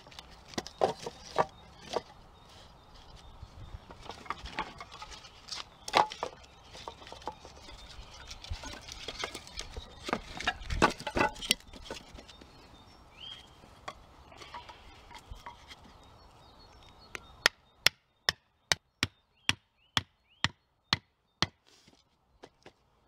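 Short peeled wooden poles clattering and knocking together as they are laid side by side across a log frame. Near the end comes a quick, even run of about a dozen sharp knocks: a hatchet striking wood.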